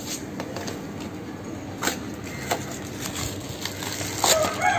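Cardboard box and plastic packaging being handled and opened, with a few light clicks and rustles. Near the end a rooster starts crowing.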